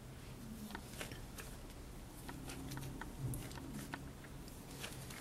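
Faint, soft squishing of hands kneading a sticky powdered-milk and condensed-milk candy dough, with scattered small clicks and ticks.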